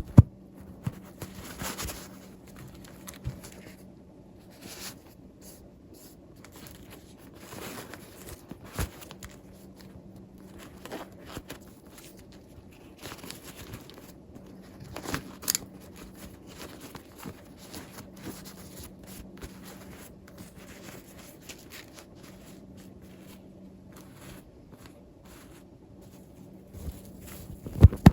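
Hands handling toy packaging and small plastic doll pieces: scattered crinkles, scrapes and sharp clicks. A faint steady low hum runs underneath.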